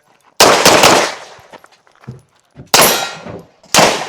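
Pistol shots fired on a practical shooting stage: a fast string of about three shots near the start, then single shots about a second apart near the end, each trailing off in a ringing, metallic decay.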